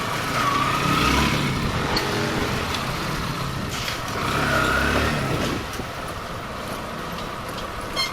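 Motorcycle engine running on the road, rising in pitch twice as it pulls away and accelerates, about a second in and again around four and a half seconds in.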